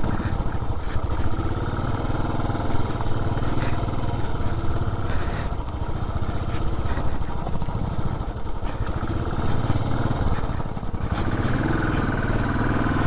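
Benelli TRK 502's parallel-twin engine running while the bike is ridden off-road, with the engine note rising near the end.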